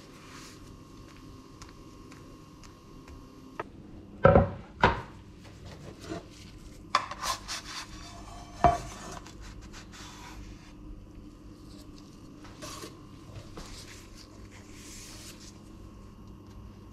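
Spatula and nonstick frying pan clattering in the kitchen: a couple of sharp knocks about four seconds in, then scrapes and clunks as the pan and taco meet a wooden cutting board, over a faint steady hum.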